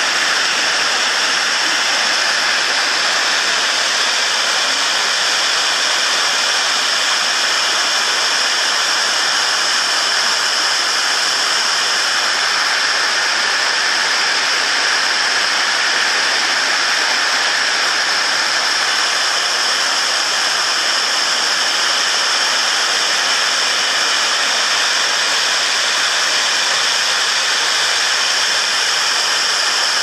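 Waterfall pouring: a loud, steady rush of falling water that does not change.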